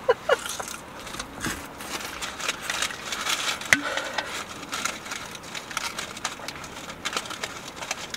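Paper food wrapper crinkling and rustling as it is handled, with scattered small clicks.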